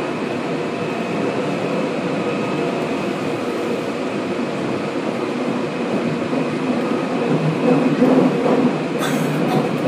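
Tokyu 8590 series field-chopper commuter train, heard from inside a motor car, running through a subway tunnel: a steady rumble of wheels and tunnel noise with a few steady tones in it. It grows louder for a moment about three quarters of the way through.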